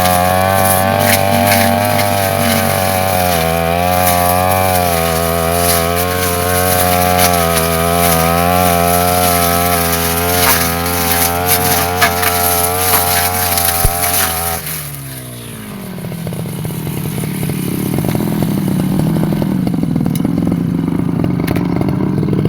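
Brush cutter engine running at high speed under cutting load, with sharp ticks of grass and debris striking the cutting head. About fifteen seconds in, the throttle is released and the engine winds down to a lower, rougher idle.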